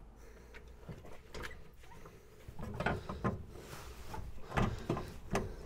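MGB front coil spring being worked by hand into its seat in the suspension: a run of irregular knocks and clinks, sparse at first and coming thicker and louder from about halfway.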